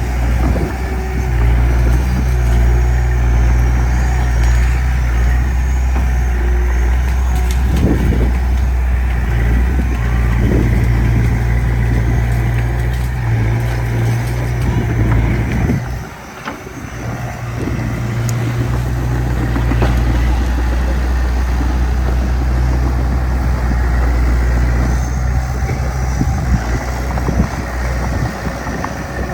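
Diesel engine of earthmoving machinery running steadily under load, with scattered knocks and clanks. The engine drops off briefly about halfway through, then picks up again.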